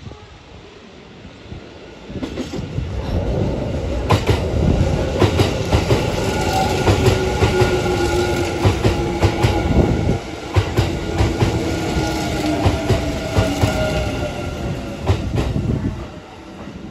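Kintetsu Shimakaze limited-express train approaching and passing close by, its wheels clattering over the rail joints and points, with a faint whine that slowly falls in pitch. The noise builds about two seconds in and drops away shortly before the end.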